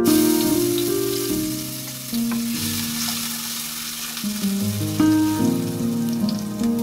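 Chopped garlic sizzling in hot cooking oil in a stainless steel pot, the hiss starting as the garlic drops in, while it is stirred with a wooden spatula.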